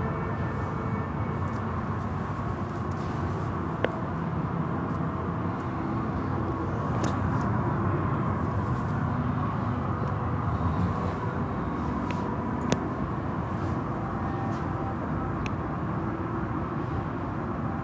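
Automatic car wash running, heard from inside the car's cabin: a steady wash of noise from water spray and soft-cloth strips rubbing over the glass and body. There is a sharp click about four seconds in and another about thirteen seconds in.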